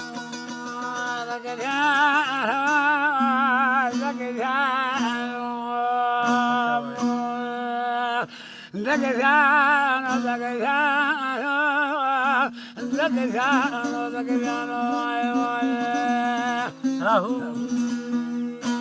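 Instrumental folk music intro: a wavering melody line with heavy vibrato over a steady low drone, pausing briefly twice.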